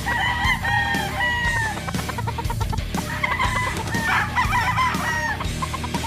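Gamefowl roosters crowing twice over background music: one long crow at the start and a second from about three seconds in.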